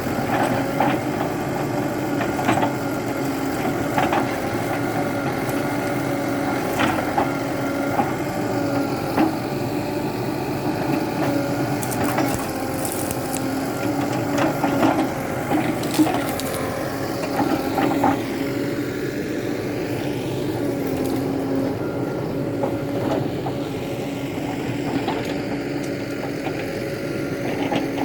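Tata backhoe loader's diesel engine running steadily, with scattered knocks and clanks throughout.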